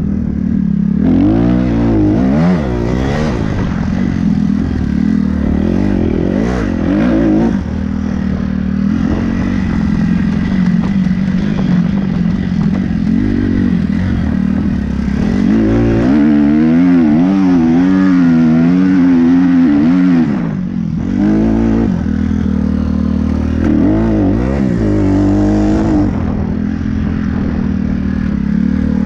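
Kawasaki 250cc dirt bike engine being ridden hard, its revs rising and falling again and again as the throttle is worked. The revs warble quickly in the middle stretch and drop off briefly about two-thirds of the way through. Wind rushes over the helmet-mounted microphone throughout.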